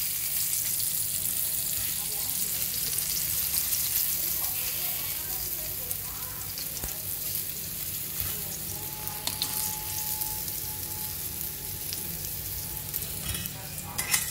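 Breadcrumb-coated chicken fillets frying in hot oil in a wok: a steady crackling sizzle. A sharp clatter near the end.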